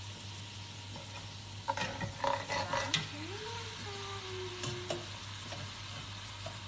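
Chicken pieces frying in oil with chopped tomato and garlic in a pot, a steady sizzle, with a spatula clinking and scraping against the pot for a second or so about two seconds in.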